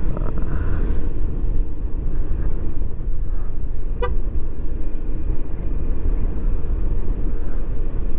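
Riding noise from a Yamaha XMAX 250 motor scooter going down a steep road: a steady, heavy wind rumble on the microphone over the ride. About four seconds in there is a single short horn beep.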